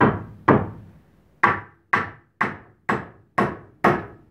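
Claw hammer driving a nail through a wooden bracing board into a eucalyptus shoring prop: about nine sharp strikes, two a little apart, then after a short pause a steady run of about two a second.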